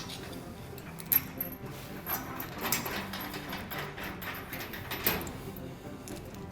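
Background music with steady tones, over which there are a few sharp metallic knocks and clinks from steel frame parts and bolts being handled, the loudest about a second in and about five seconds in.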